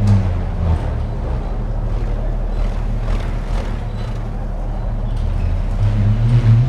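Bullroarer whirled overhead on its cord: a low, pulsing drone that wavers up and down in pitch. It is strongest right at the start and again from about five and a half seconds in, with a thinner whir in between.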